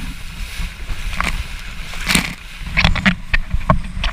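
Wind buffeting the action camera's microphone over a kiteboard skimming choppy water, with the hiss of spray and several sharp splashes of water in the second half.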